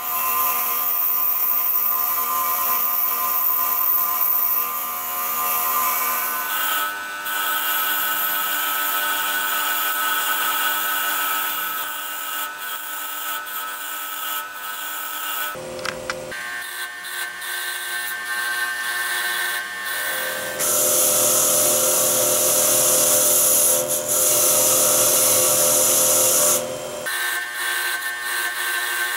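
Bench grinder running a fine brass wire wheel, with a steady motor whine. Small binocular parts are pressed against the wheel in turns, adding a scratching hiss as the old black finish is stripped to bare brass. The hiss is loudest for several seconds about two-thirds of the way through.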